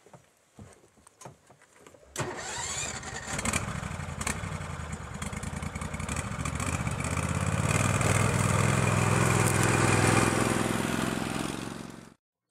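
Argo amphibious ATV's engine starting about two seconds in, then running and growing louder; it cuts off abruptly near the end.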